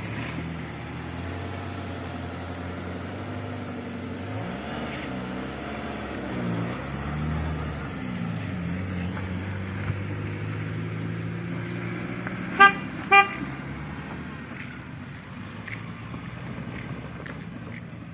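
A motor vehicle's engine running, its pitch rising and falling. Two short horn toots about two-thirds of the way through.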